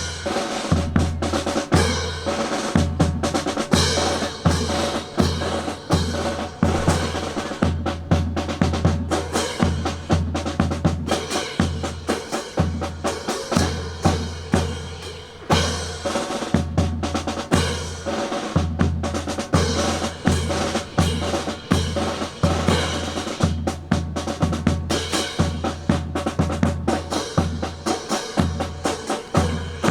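Drum percussion section playing a fast, driving rhythm for a drill team, with heavy low beats about two or three times a second under quicker, sharper drum strokes.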